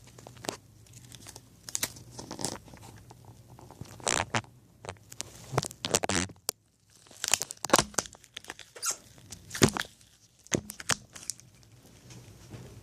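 Product packaging being opened by hand: irregular crinkling, crunching and tearing of cardboard and plastic wrapping, in short rustles with brief pauses between them, dying down near the end.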